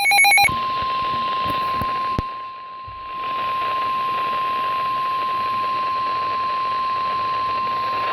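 Emergency Alert System broadcast: the brief tail of a burst of digital header tones, then a single steady attention tone of about 1 kHz held for about eight seconds over constant radio hiss.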